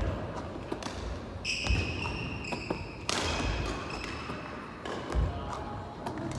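A basketball thudding on a hard court floor three times, with sneakers squeaking on the court, during repeated close-range layups.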